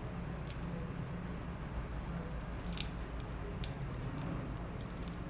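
Plastic prying tool clicking and scraping against a Samsung Galaxy S6's glass back cover as it is worked loose from its adhesive strips: a few short, sharp ticks over a steady low hum.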